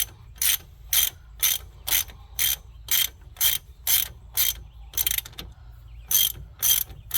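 Hand ratchet wrench clicking on each return stroke, about two strokes a second, as a front hub-assembly mounting bolt is turned. There is a short pause about five and a half seconds in.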